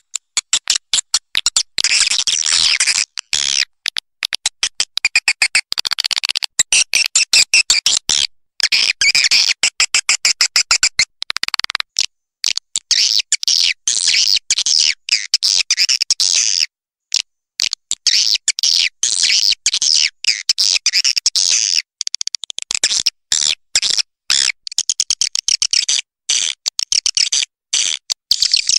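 Swiftlet calls: rapid high-pitched chirping and clicking in long dense trains, broken every few seconds by short silent gaps.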